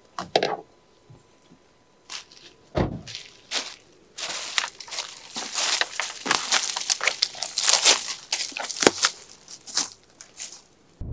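Doors of a Dacia Sandero Stepway being shut, with a heavy thud about three seconds in, followed by footsteps crunching through dry fallen leaves for several seconds.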